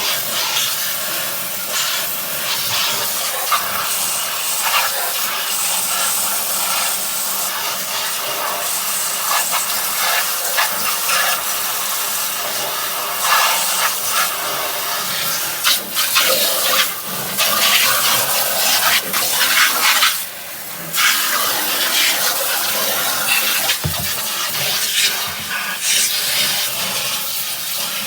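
Handheld shower head spraying water into a portable washing machine's tub and lint trap: a steady hiss of running water that briefly drops away about twenty seconds in.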